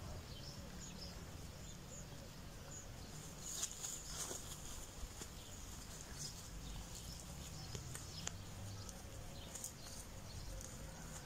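Fallow deer walking through leafy undergrowth: soft rustling footsteps with a few sharper snaps, over a low rumble and faint bird chirps.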